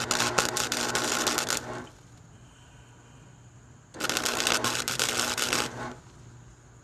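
Electric arc welding on a push mower's sheet-steel deck: two tack welds, each a crackling, sputtering arc of about two seconds, the first right at the start and the second about four seconds in, over a steady low hum.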